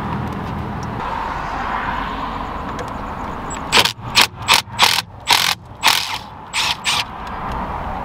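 Cordless impact driver run in about eight short, loud bursts over some three seconds, starting about halfway through, loosening the steering-wheel airbag's security Torx screws, which are set with blue Loctite.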